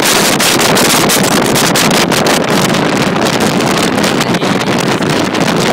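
Loud, gusty wind buffeting on the microphone of a boat under way at speed, over the running of its Johnson 150 two-stroke V6 outboard and the rush of water from the wake.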